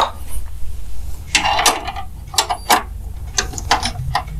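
Metal hardware being handled at a graphics card's mounting bracket in a steel PC case: a run of short scrapes and clicks with a ratchet-like rasp, as the card is secured in place.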